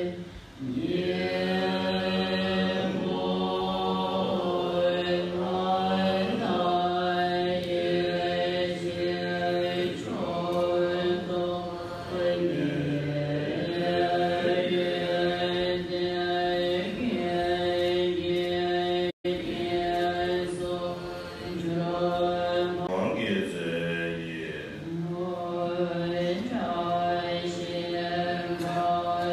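An assembly chanting the Tibetan Buddhist long-life puja liturgy together, a sustained melodic recitation on held pitches that shift every few seconds, with a split-second break about nineteen seconds in.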